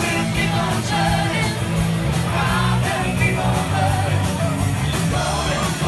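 A live rock covers band playing in a crowded pub: a singer at the microphone with guitar, the crowd singing along.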